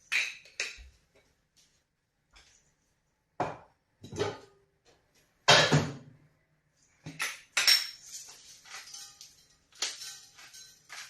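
Handmade scallop-shell rattles being shaken, giving short clattering bursts with gaps between them, then a denser run of rattling near the end.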